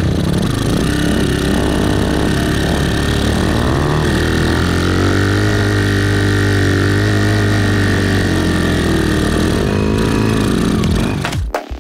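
Motorcycle engine of a homemade trike running under way off-road, revving up about four seconds in, holding, then easing off. Near the end it gives way to music with a regular beat.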